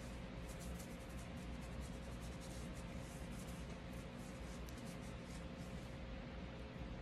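Microfiber cloth rubbing over the slide of an M&P Shield Plus 9mm pistol as it is wiped clean: a run of soft, scratchy rubbing strokes.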